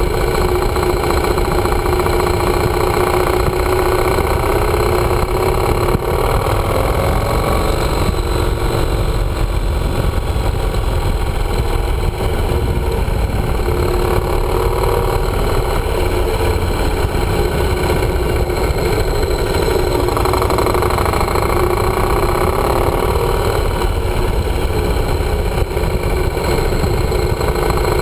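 Yamaha motorcycle engine running on the move, its note rising and falling a few times with changes of speed, over heavy wind rush on the camera's microphone.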